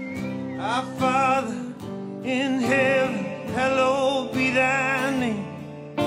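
Live band music: strummed acoustic and electric guitar chords under a lead melody of several held, wavering notes.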